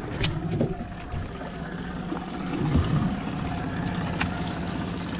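Fishing boat's engine idling steadily, with water sloshing and splashing around the hull and a couple of sharp knocks, near the start and about four seconds in.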